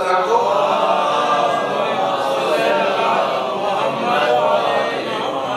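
Congregation chanting together in unison: a loud, sustained chorus of many voices.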